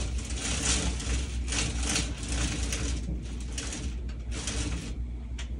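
A fabric roll-up window shade being raised by hand, rustling and swishing in a series of short bursts, over a steady low hum.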